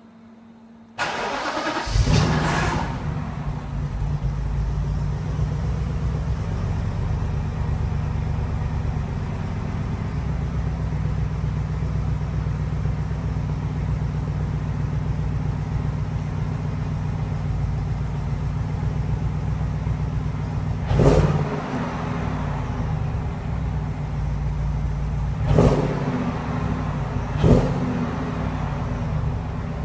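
BMW 645Ci's 4.4-litre V8 on a cold start with its stock exhaust: the starter cranks briefly and the engine catches with a flare about two seconds in, then settles into a steady fast idle. Near the end it is revved three times in short blips.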